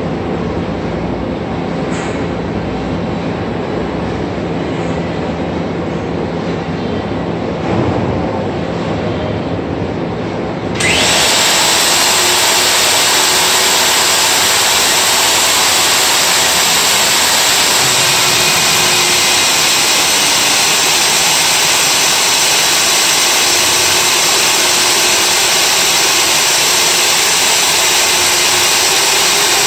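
Milwaukee core drill running steadily, coring into concrete. About eleven seconds in the sound jumps suddenly to a louder, hissier steady noise that continues.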